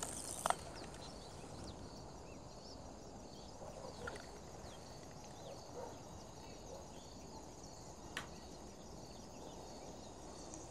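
Faint open-air ambience with scattered small bird chirps, broken by two sharp clicks, one shortly after the start and one about eight seconds in.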